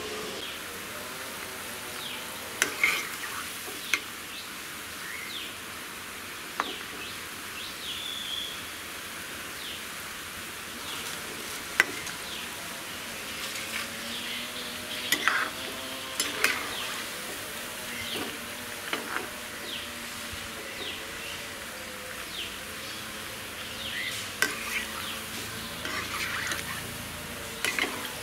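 Banana bondas deep-frying in hot oil in a kadai: a steady sizzle, with sharp metallic clicks every few seconds as a metal ladle knocks against the pan.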